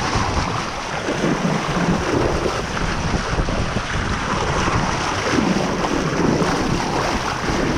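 Wind buffeting the microphone over the rushing wash of the sea along a moving sailboat's hull, a steady, loud noise that swells and eases.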